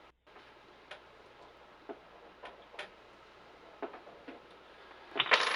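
Faint, irregular clicks and light taps of small parts and tools being handled during lathe assembly, about one every second or so, with a louder clatter near the end.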